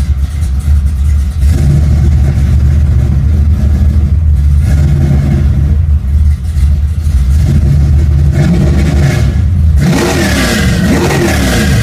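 Shafiroff-built 427 cubic-inch small-block Chevy V8 in a 1963 Chevy II Nova, heard from inside the car: a loud, deep idle rumble with a few short revs. The biggest rev, rising and falling, comes near the end.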